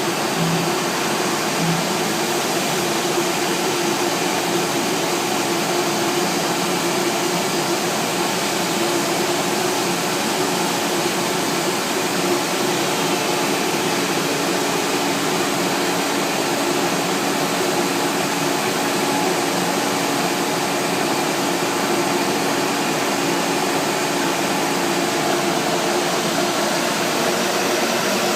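CNC router machining MDF panels: a loud, steady whir with an even hum underneath, unchanging throughout.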